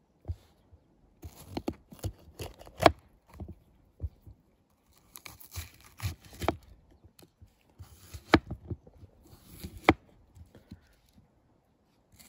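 Bushcraft knife cutting through vegetables by hand: short crunchy slicing sounds in three bursts, with a few sharp knocks of the blade, the loudest about three seconds in.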